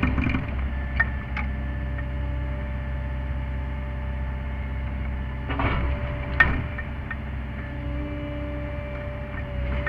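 Sany SY50U mini excavator's diesel engine running steadily, heard from inside the cab, with a steady whine over the drone. A few sharp clicks or knocks come about one second in and again about six and a half seconds in.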